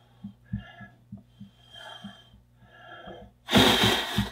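Person blowing breath at a small sound-sensor microphone: several soft puffs about a second apart, then one strong, rushing blast near the end.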